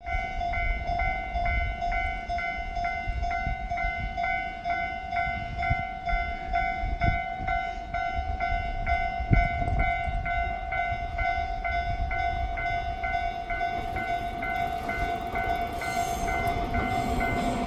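Japanese level-crossing warning bell ringing in a fast, even repetition. Near the end the noise of an approaching train builds under it.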